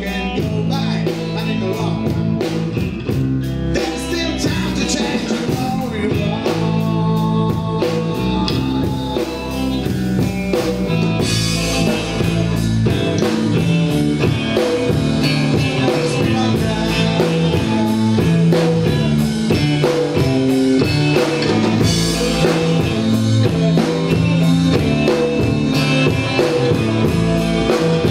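Rock band playing a bluesy number: drum kit with cymbals, bass and electric guitar, with a singing voice.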